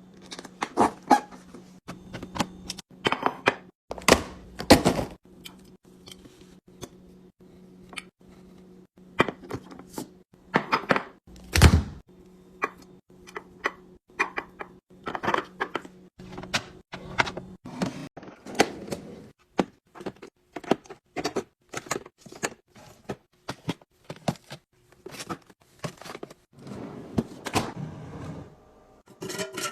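Food packages and containers being handled and set down while restocking: a run of knocks, taps and rustles, with heavier thumps about four seconds in and again near the middle. A low steady hum sits under the first two-thirds and then stops.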